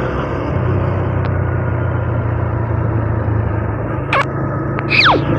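Honda Revo 110 single-cylinder four-stroke engine running steadily while the motorcycle is ridden. Near the end come two brief high sounds that fall sharply in pitch, the second one louder.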